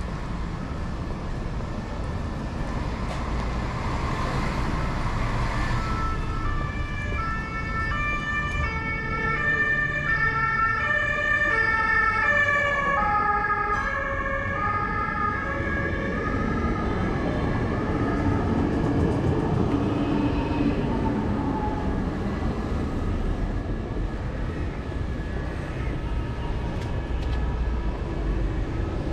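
An emergency vehicle's two-tone siren, alternating back and forth between two pitches for several seconds and sliding lower as it goes by, over steady road traffic.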